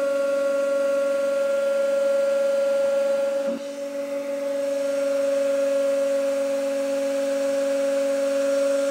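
150-ton hydraulic press running under load as its ram pushes down on a bicycle crank, giving a steady pitched whine. About three and a half seconds in it dips briefly and its higher overtones fall away, then the whine carries on.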